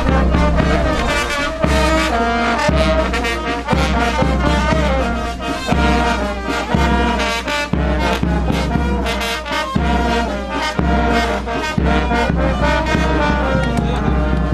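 Brass band playing a lively tune: trumpets and trombones carry the melody over deep bass notes that fall about once a second.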